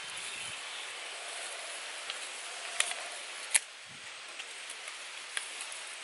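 Sharp wooden clicks from bamboo sticks being handled, two loud ones near the middle and a few fainter ticks later, over a steady background hiss.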